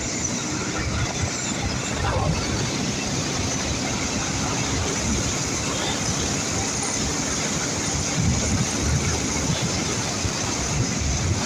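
Ural motorcycle's boxer-twin engine running steadily under way on a test ride after a full rebuild, with heavy wind rush on the microphone.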